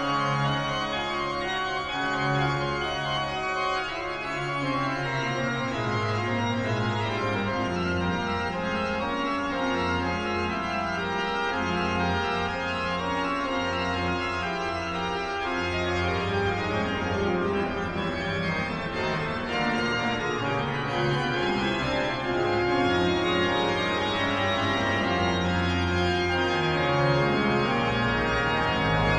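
Pipe organ playing slow, sustained chords; deeper bass notes come in about six seconds in.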